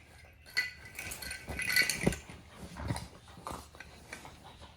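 A jingling cat toy with a small ball inside, rattled and clinking irregularly as a Rottweiler puppy mouths and bats it, busiest around the middle, with a few dull knocks.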